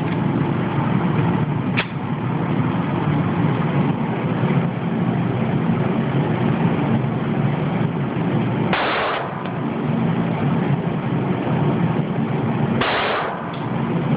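A steady low drone of range background noise, with two sharp handgun shots about nine and thirteen seconds in and a single sharp click near two seconds.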